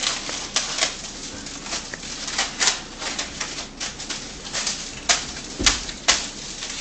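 A string of irregular sharp clicks and taps, roughly one or two a second, some louder than others.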